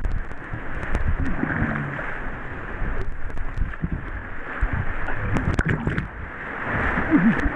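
Whitewater rapid rushing and churning around a kayak, with repeated sharp splashes of waves, paddle and hull as the boat is knocked sideways in the rapid.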